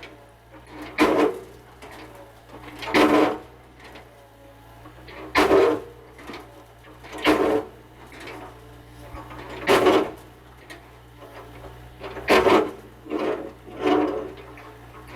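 Repeated creaking, scraping bursts, about one every one to two seconds, over a steady low hum: a mini excavator working wooden demolition debris.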